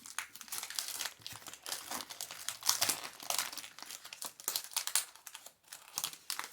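Foil Pokémon booster pack wrapper crinkling and tearing as it is opened, with a dense run of irregular crackles that stops near the end.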